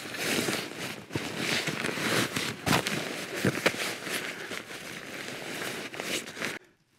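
Nylon bivy bag and sleeping gear rustling and crinkling as they are stuffed into a rucksack, with a few sharper knocks among the rustle; the sound cuts off suddenly near the end.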